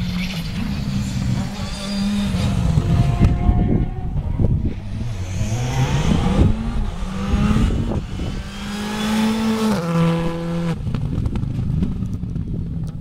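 Rally car engine accelerating hard, revving up and changing gear several times as the car speeds past.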